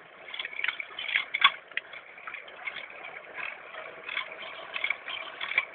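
Wood fire crackling in the burner that heats a Stirling engine, with irregular snaps and pops.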